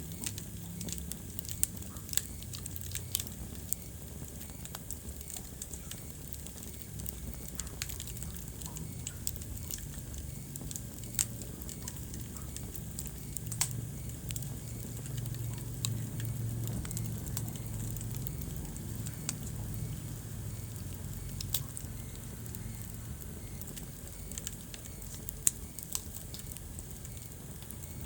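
Wood fire burning in a fireplace, with a low rumble of flames and irregular sharp crackles and pops from the burning logs.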